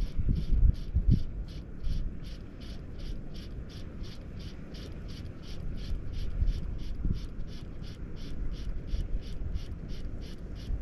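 High-pitched animal chirps repeating steadily at about four a second, over a low rumble that is strongest in the first second or so.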